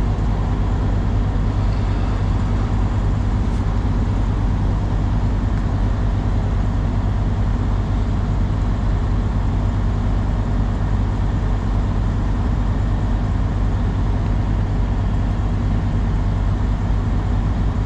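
Truck engine idling steadily, a constant low rumble.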